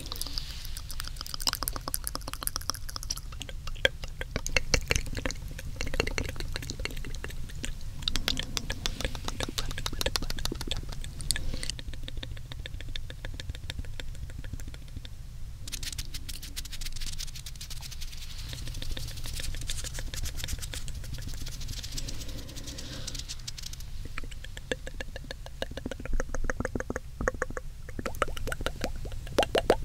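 Close-up wet mouth sounds into a binaural microphone: rapid wet tongue clicks and smacks in dense runs, with short pauses between them.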